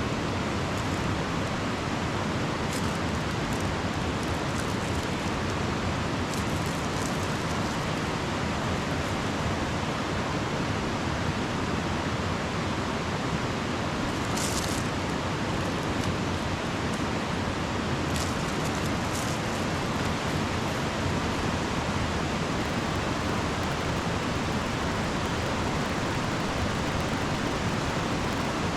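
River water rushing steadily, with a few brief high hisses over it.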